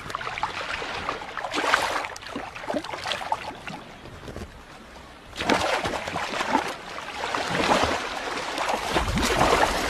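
Sea water sloshing and splashing, growing louder about five and a half seconds in.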